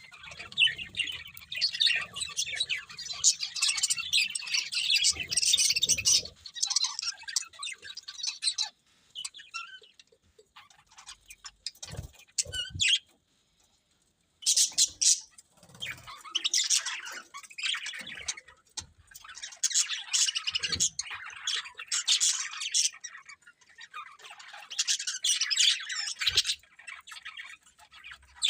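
Budgerigars chirping and chattering in quick high-pitched bursts. The chirping is dense for the first eight seconds, thins to scattered calls with a brief lull about thirteen seconds in, then grows busy again.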